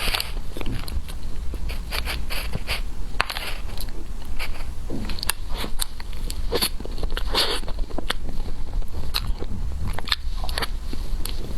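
Close-up eating sounds: irregular bites and chewing with small wet crackles and clicks.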